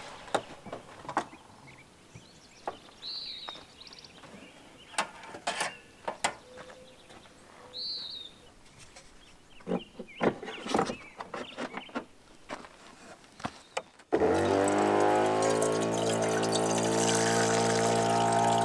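Light clicks and rustles of packets being handled, with two short bird chirps. About fourteen seconds in, water starts running from a brass spigot into a small camping kettle, with the steady hum of a 12V water pump under the splashing.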